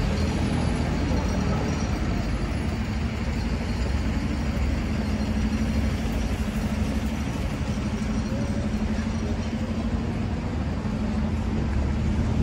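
Steady street traffic rumble from lorries and cars, with a low engine hum that is strongest in the middle.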